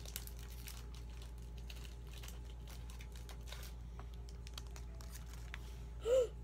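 Soft crinkling and rustling as a freshly opened Pokémon booster pack's foil wrapper and trading cards are handled, in scattered small clicks and rustles. Near the end a child makes one brief vocal sound, the loudest moment.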